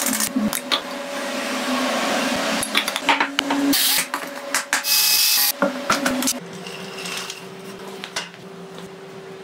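Kitchen handling sounds as cake ingredients go into a plastic mixing bowl: clicks and taps, two short bursts of pouring or scraping in the middle, and chopped walnuts scraped off a wooden cutting board into the bowl. A steady low hum runs underneath.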